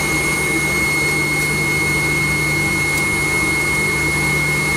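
Steady cabin noise of a McDonnell Douglas MD-90 taxiing, its rear-mounted IAE V2500 turbofans at idle: a steady high whine over a low hum.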